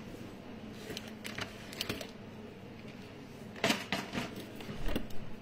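Scattered light clicks and taps, a handful of short sharp ones with a small cluster a little past the middle, over faint room hum.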